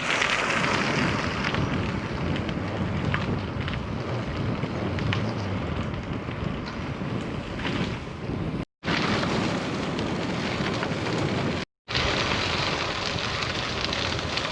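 Steady rushing wind noise on a GoPro's microphone, cut off twice by brief silent gaps where separate clips are joined.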